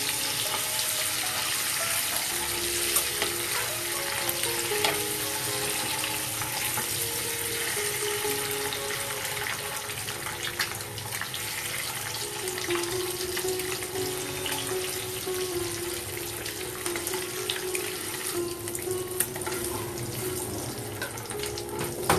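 Hot oil sizzling steadily as whole boiled eggs fry in a pan, with occasional clicks of a perforated metal ladle against the pan. Background music plays underneath.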